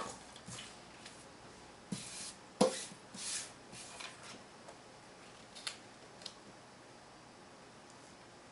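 Sheets of cardstock and patterned paper being handled and laid down on a wooden tabletop: a few light taps and short paper rustles, the sharpest tap about two and a half seconds in, then quiet for the last couple of seconds.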